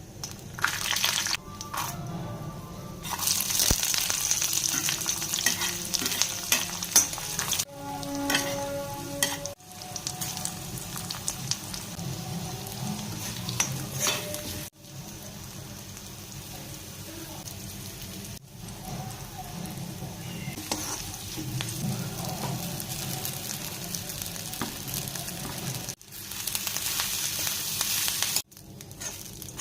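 Food sizzling as it fries in a pan, in a string of short cut-together clips, so the sizzle stops and restarts abruptly every few seconds. A short pitched sound comes in about eight seconds in.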